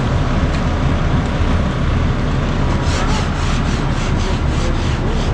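Steady low rumble of a heavy engine running, with fast, even scraping strokes on wet concrete starting about three seconds in, about four a second.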